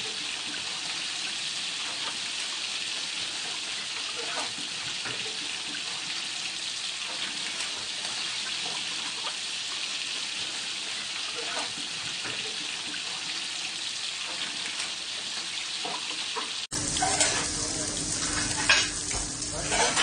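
Oil sizzling steadily in a frying pan around bacon-wrapped rolls, with scattered small pops. About 17 seconds in it cuts to bacon strips frying, a louder crackling sizzle with a low steady hum beneath.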